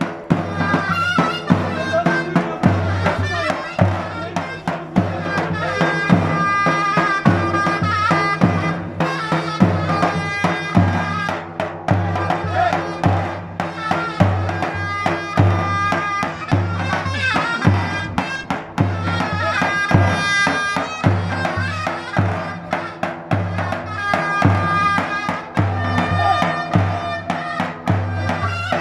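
Turkish davul bass drum beating a steady halay dance rhythm under a loud, high melody, played live as folk dance music.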